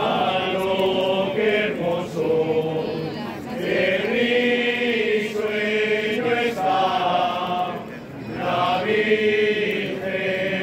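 A group of voices singing a slow chant together, with long held notes in phrases broken by short pauses.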